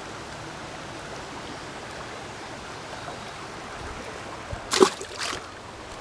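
Small mountain stream running steadily, with two brief sharp noises close together about five seconds in.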